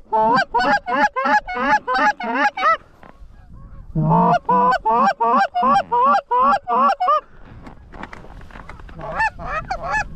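Canada goose honks and clucks in fast, even runs of about four a second: two long runs, then a short burst near the end.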